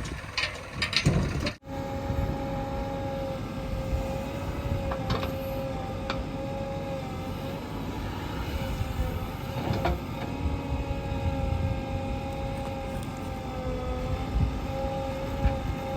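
JCB 3DX backhoe loader's diesel engine running steadily under work, with a held whine that dips slightly in pitch now and then. A few clanks sound in the first two seconds, and there are occasional faint knocks later.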